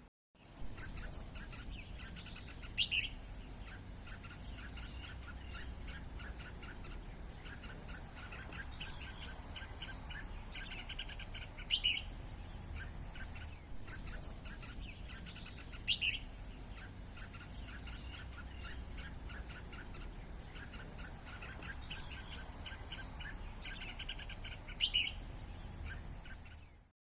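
Bulbuls chirping in a quick, continuous run of short notes, with four louder, sharper calls spread through it.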